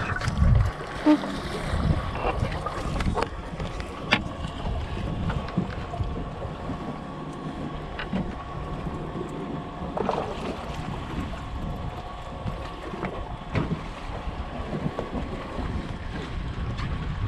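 Open-water ambience on a small fishing boat: wind on the microphone and water against the hull, with a faint steady hum. A few sharp knocks are scattered through it, from things being handled on the boat.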